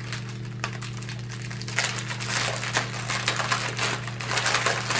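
Small clear plastic packets of diamond-painting drills being handled and shuffled, crinkling, with small clicks of the drills shifting inside; the handling gets busier about two seconds in.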